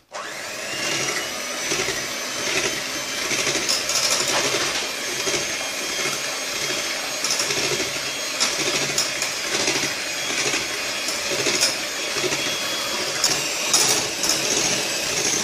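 Electric hand mixer with twin wire beaters running steadily, whipping crème chantilly powder into cold milk in a glass bowl. It starts abruptly, with a few sharp clicks near the end.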